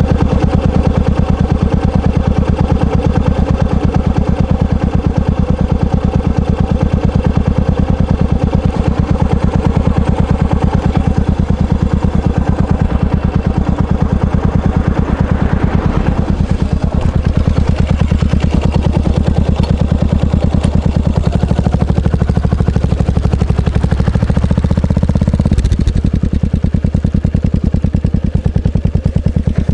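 Yamaha SR400's air-cooled single-cylinder four-stroke engine idling through its exhaust muffler, a steady run of firing pulses, with a brief change in the note about 25 seconds in.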